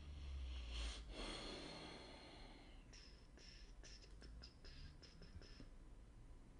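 Faint rustle about a second in, followed by a quick run of about eight light clicks.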